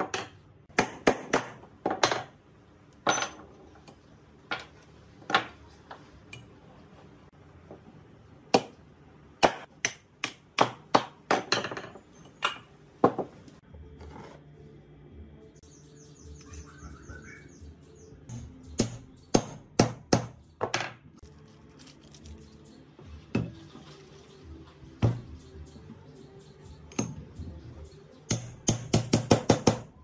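Hammer and steel parts knocking on a steel workbench as the bearings and rotor shaft of an air-conditioner motor are worked on: sharp metallic taps and clinks in scattered groups, some ringing briefly, with a quick run of taps near the end.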